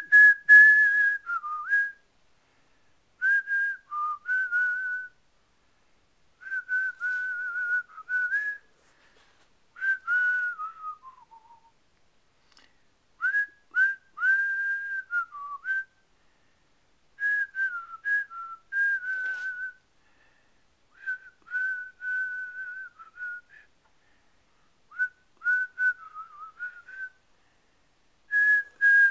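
A person whistling a tune in about nine short phrases with brief pauses between them, the notes stepping up and down and now and then sliding lower at a phrase's end.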